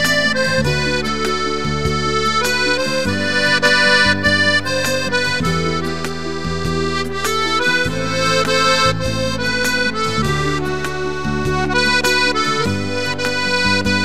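Piano accordion playing an instrumental melody over sustained bass notes that change every second or two.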